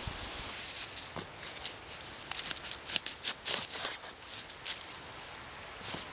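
Leaves and stinging nettle stems rustling and crackling as a hand grips and pulls the plants from the leaf litter, with a quick run of sharp crackles about two to four seconds in.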